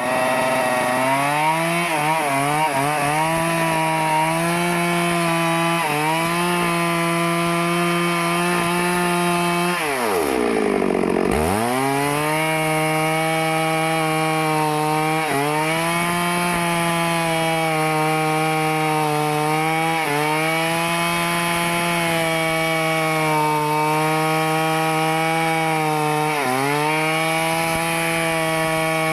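Stihl two-stroke chainsaw running at high revs while cutting into a teak trunk. Its pitch sags briefly several times as the chain loads up in the wood. About ten seconds in, the engine speed falls steeply and then climbs back to full revs.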